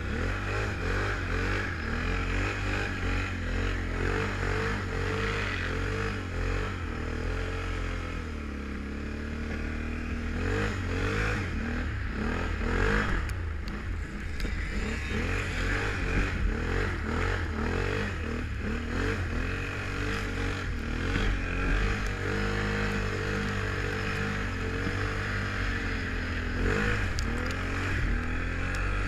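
Can-Am Renegade 1000 ATV's V-twin engine running under throttle through snow, revving up and down with its pitch rising and falling. About eight seconds in it settles briefly to a lower, steadier note before climbing again.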